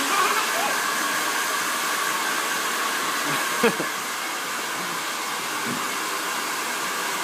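Hand-held hair dryer running steadily, an even rush of blown air. A single short sharp sound cuts in a little past halfway.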